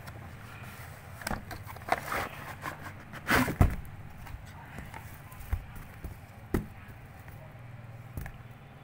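Handling noise from unpacking a laptop charger: a cardboard box and the power brick and cable being moved about, giving irregular knocks and rustles, the loudest a little past three seconds in.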